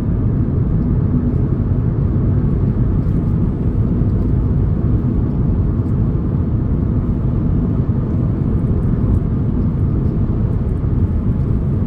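A vehicle driving along a road: a steady low rumble of engine and tyre noise that does not change.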